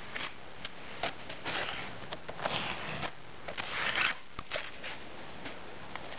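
A steel straightedge scraping excess moulding sand off the top of a metal moulding flask, striking the sand level in several scraping strokes with light clicks between.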